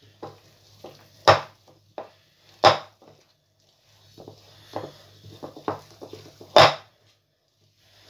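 Wire whisk stirring flour into a wet egg-and-oil batter in a glass bowl, the wires clinking sharply against the glass a little over a second in, again at nearly three seconds and near the end, with lighter taps between.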